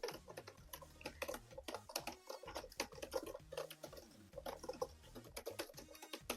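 Close-miked ASMR clicking: quick, irregular clicks, several a second, with a couple of short pauses.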